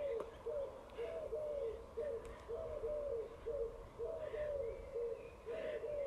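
Pigeons cooing in a steady run of short falling notes, two or three a second, with a few faint higher chirps from small birds.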